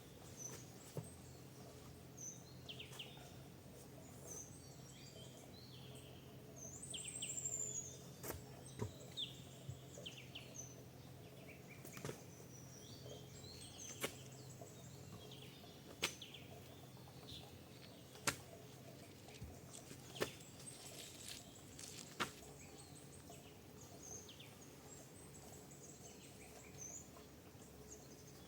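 Birds chirping and calling, with one louder falling call about seven seconds in. Sharp knocks come at roughly two-second intervals through the middle.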